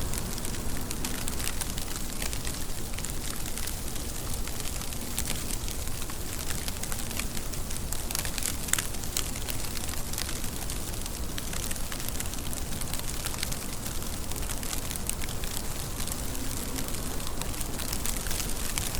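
Steady rain falling, an even hiss of many fine drop ticks without a break.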